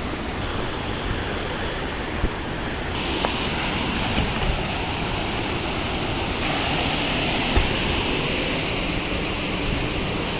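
A waterfall rushing, a steady noise of falling water that grows louder about three seconds in, with a few brief knocks over it.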